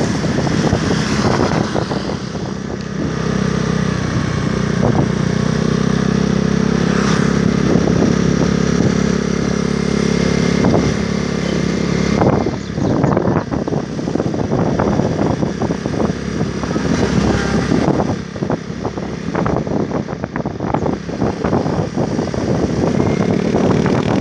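Road vehicle engines running: a steady low engine drone from about two seconds in until about twelve seconds in, then choppier, uneven traffic noise. No horn melody is heard.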